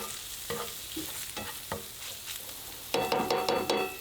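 Chorizo sizzling in a pan while a utensil scrapes and stirs it in repeated short strokes. Near the end comes a louder run of metallic clattering with ringing tones.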